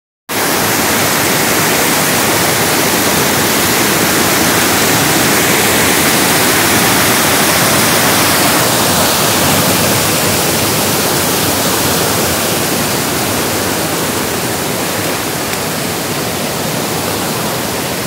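Stream water rushing over a rocky cascade close by: a steady, loud rush, a little softer in the second half.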